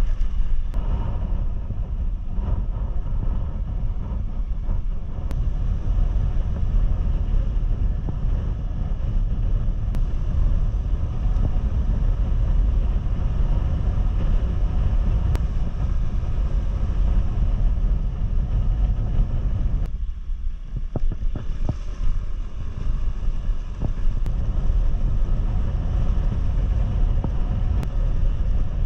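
Wind rushing over the microphone of a moving motorcycle, over the low rumble of its engine and tyres on the road. The wind noise eases briefly about twenty seconds in.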